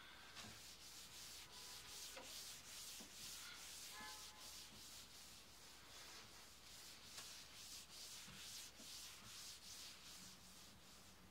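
A paper towel wiped briskly back and forth over a glossy tabletop, giving faint, repeated hissing rub strokes about two or three a second that die away near the end.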